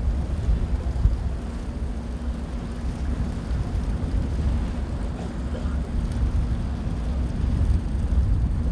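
Low, steady rumble of a vessel under way at sea, with a faint steady hum, mixed with wind buffeting the microphone.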